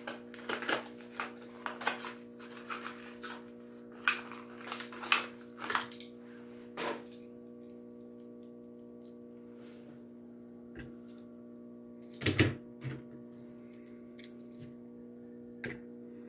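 Crackling and clicking of a toy car's plastic blister pack and card being opened, through the first several seconds. Later a few sharp knocks as a diecast toy truck is handled and set down on a display turntable, over a faint steady hum.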